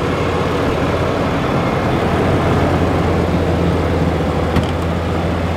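2019 Ram 2500's 6.7-litre Cummins turbo diesel idling steadily just after start-up.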